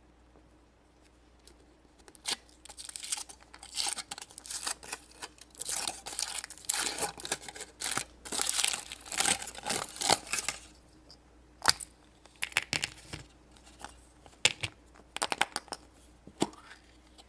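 A chocolate surprise's wrapper being torn open and crinkled by hand: several seconds of dense tearing and crackling, then a few scattered crinkles and light clicks as the wrapper is pulled apart.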